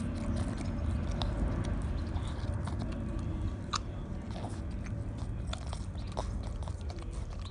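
A dog licking and smacking peanut butter off a rubber chew toy held in a hand: a run of small, irregular wet clicks and smacks over a low steady rumble.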